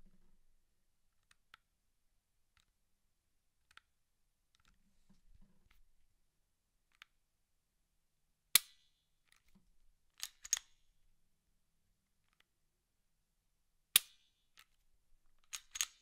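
Smith & Wesson M&P9 M2.0 pistol being handled: faint ticks and rubs, then several sharp clicks, the loudest about halfway in and again near the end, with a quick cluster of clicks at the very end.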